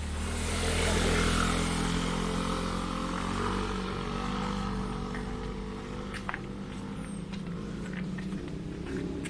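A motor vehicle's engine running steadily, with a rush of noise that swells over the first second or two and then eases.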